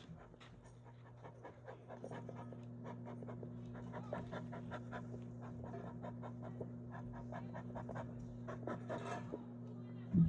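Rapid, irregular panting breaths close to the microphone, over a steady low hum.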